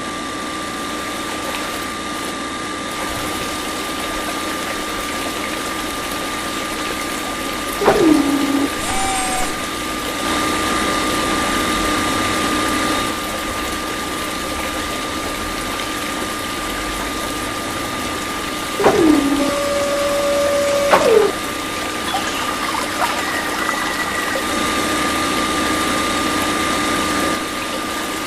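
Small electric mini water pump running steadily with a thin high motor whine over the rush of pumped water. A few sharp clicks with short falling whines break in about a third of the way through and twice more about two-thirds through.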